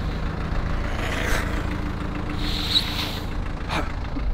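Low, steady rumble of a truck engine idling, with a short hiss midway through.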